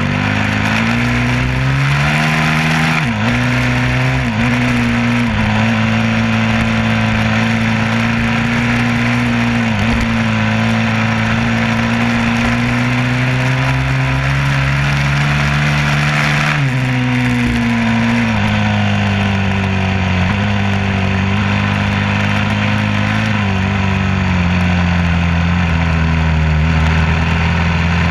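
A vehicle engine running steadily under load, its pitch slowly climbing and then dropping sharply several times.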